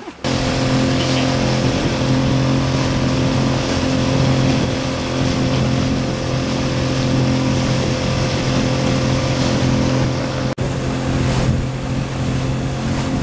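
Motorboat engine running steadily at cruising speed, a constant low hum with rushing wind and water over it. The sound drops out for an instant about ten and a half seconds in, then carries on the same.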